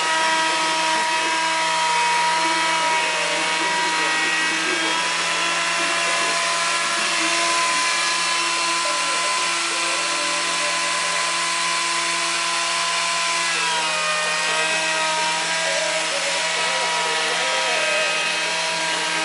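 Electric wood lathe and power tool running steadily, a whining motor over the hiss of cutting, with a brief dip in pitch about two-thirds of the way through.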